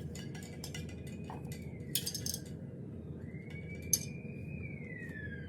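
Light clinks and taps of metal cookware being handled and unpacked, over a steady low hum. A faint tone glides up and then down in the second half.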